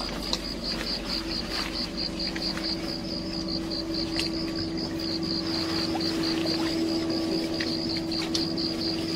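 A steady engine drone, with an even, high-pitched pulsing chirp over it at about four pulses a second.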